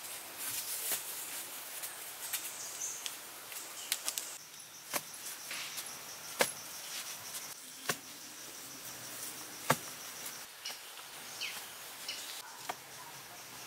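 A handful of sharp knocks or taps, one to two seconds apart, over a steady high hiss of outdoor background.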